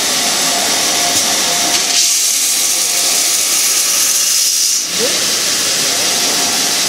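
Abrasive belt grinder deburring a metal casting held against the running belt: a loud, steady grinding hiss that gets brighter about two seconds in and dips briefly just before five seconds.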